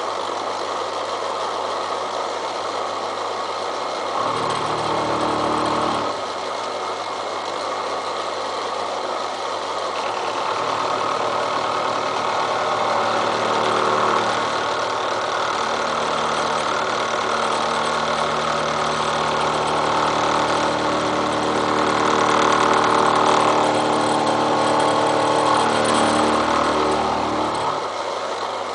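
Milling machine running with its cutter cutting into railroad-rail steel: a steady machine drone with a hiss of cutting, its tone shifting several times as the cut goes on.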